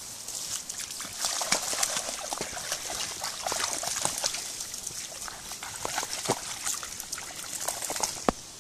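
Splashing steps through a shallow stream as a Jack Russell terrier and its walker wade across, over the water's steady trickle. A single sharp knock comes near the end.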